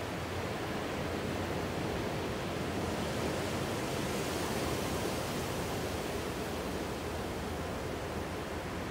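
Ocean surf washing in as a steady rush of water, swelling and brightening midway through, then easing again.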